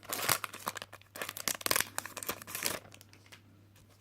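Foil Pokémon card booster pack wrapper crinkling and tearing as it is ripped open, a dense crackle that dies away about three seconds in.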